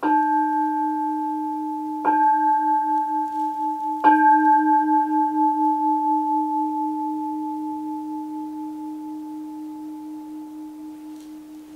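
A bowl-shaped altar bell struck three times, about two seconds apart. Each strike rings on in one low tone that pulses slightly and fades slowly. It is rung at the epiclesis, as the priest asks that the bread and wine be consecrated.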